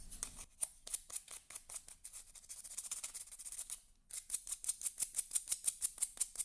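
Small plastic packet being crinkled and handled, giving quick sharp crackling clicks. The clicks are sparse at first and become a steady run of about five or six a second from about four seconds in.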